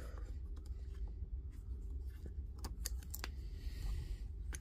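Irregular small clicks and taps of a small Torx screwdriver working T6 Torx screws out of a laser level's plastic head housing, over a low steady hum.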